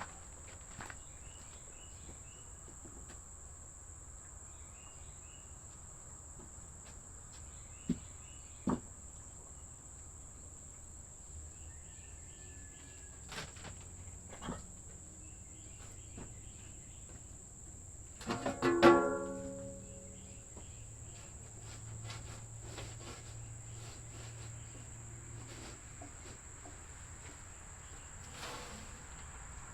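Outdoor evening ambience with a steady, high insect drone of crickets over a low hum. Two sharp knocks come about eight seconds in, and a brief loud pitched squeal with several tones sounds a little past the middle.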